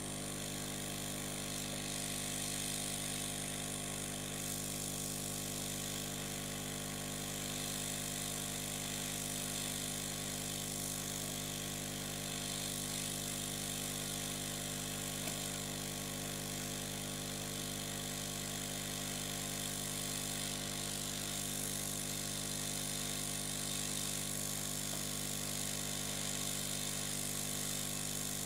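Hot air rework gun blowing steadily: a constant hum with a hiss of moving air, as it heats a replacement MOSFET onto a motherboard's VRM section.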